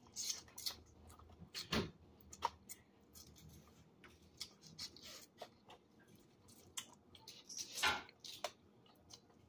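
Soft, scattered clicks, cracks and smacks of a boiled blue crab being eaten by hand: shell pieces snapped and picked apart with the fingers and meat sucked from the shell. Two cracks stand out, about two seconds in and near the end.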